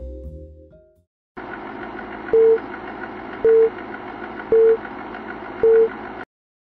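Film leader countdown sound effect: four short, mid-pitched beeps about a second apart, one per number, over a steady hiss and rattle like a running film projector, cutting off after the last beep. A music phrase fades out in the first second.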